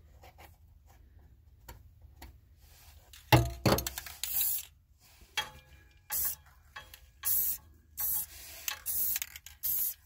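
Aerosol spray paint can hissing in about six short bursts as paint goes onto the bare metal around a freshly drilled hole in a van's floor. A single loud knock comes about three seconds in, before the spraying starts.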